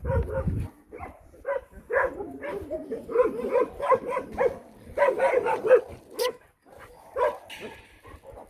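Shelter dogs barking repeatedly, many short barks overlapping in quick succession.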